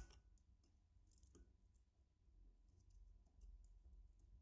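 Near silence broken by a few faint metallic ticks and scrapes, clearest about a second and a half in, as a flat steel tool works against the rim of a brass oil-lamp burner base.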